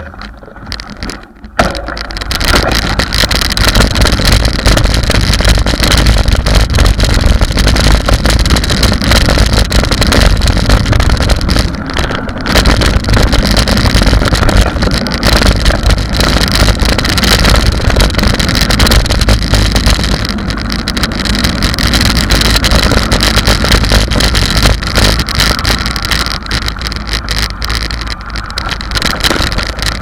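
Loud, steady noise of a mountain bike rolling fast over a gravel road: tyres on gravel and bike rattle mixed with wind buffeting the camera's microphone. It rises sharply about a second and a half in.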